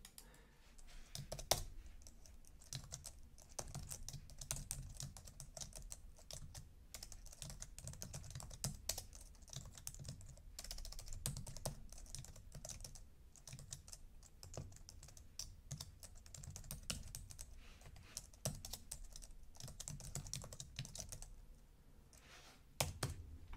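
Computer keyboard being typed on in quick, irregular runs of faint key clicks, with a louder click near the end.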